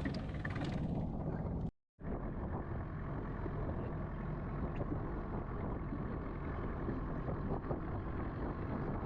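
Longtail boat's engine running steadily with water and wind noise as the boat travels under way. The sound drops out completely for a moment just before two seconds in.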